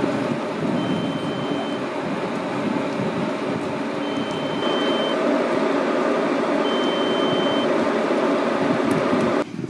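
Steady engine-like rumble with a high electronic beep laid over it. Each beep lasts about a second, and it sounds three times, a few seconds apart.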